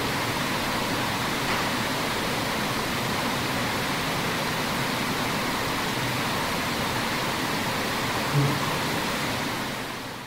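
Steady hiss of an amplified recording's background noise, with one short low thump about eight seconds in; the hiss fades near the end.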